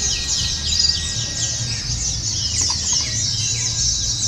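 Many white-eyes (pleci) singing at once: a dense, unbroken chorus of fast, high chirps and trills, with a steady low rumble beneath.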